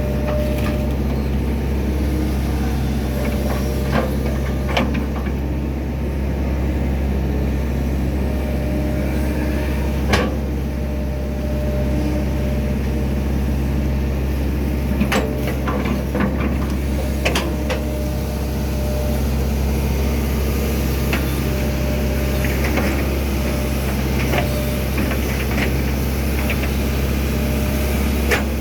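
Hydraulic excavator's diesel engine running steadily under work, with scattered short clanks and knocks, the loudest about ten seconds in.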